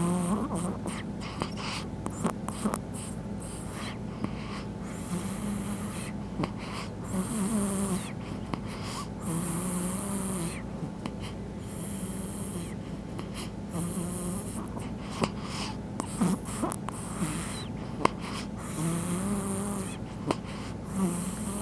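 A sleeping baby snoring: a low, pitched snore every few seconds, some drawn out and some short, with a few faint clicks in between.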